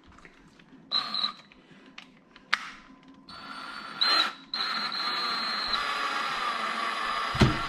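Power drill driving a screw into a frame. It gives a couple of short trigger pulses, then runs steadily with a high whine for about three seconds as the screw goes in. A sharp knock comes near the end as the screw seats.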